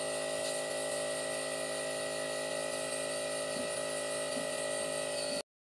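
Nebulizer air compressor running with a steady buzzing hum, cutting off suddenly near the end.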